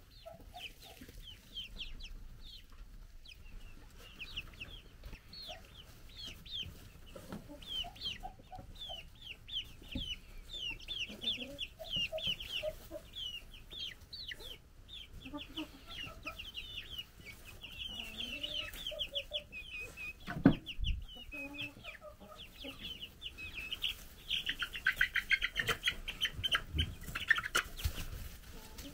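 Young chickens peeping constantly, many short falling peeps, with soft lower clucks here and there. A sharp knock sounds about two-thirds of the way through, and the peeping grows busier near the end.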